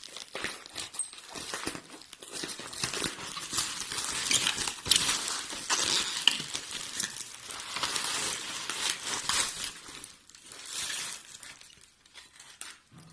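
Packaging crinkling and rustling as it is crumpled and handled, a dense run of small crackles that thins out over the last few seconds.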